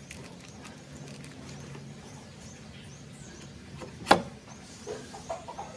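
A sharp metal knock about four seconds in, followed by a few lighter knocks, as the steel shaft of an electric motor rotor is set down into a ball bearing held in a bench vise. A steady low hum runs underneath.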